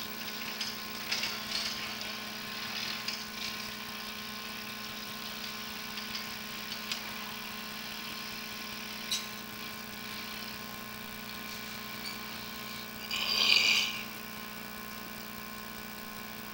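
A steady machine hum with several held tones, from running equipment, with a few faint scratches and one brief, louder rasping scrape about thirteen seconds in.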